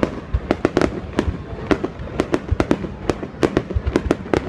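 Fireworks display: aerial shells bursting in rapid, irregular succession, about four sharp bangs a second over a continuous low rumble of booms.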